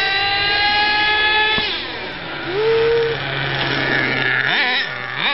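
Gas-powered RC car engine running at high revs with a high, buzzing whine. It drops in pitch about two seconds in as the throttle comes off, then winds back up near the end.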